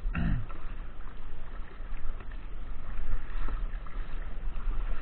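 Strong wind buffeting the microphone, with a fluctuating low rumble and a hiss of water around the kayak. At the very start there is a short vocal sound that falls in pitch.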